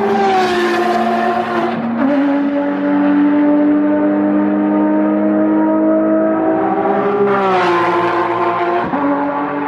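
Porsche 911 GT3 race cars driving past at speed, their flat-six engines holding a steady note. The note drops in pitch as a car goes by, about two seconds in and again shortly before the end.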